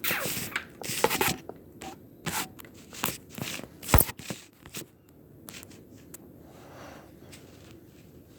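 Rustling, scraping and clicking noises, with a sharp knock about four seconds in; it goes quieter over the last few seconds.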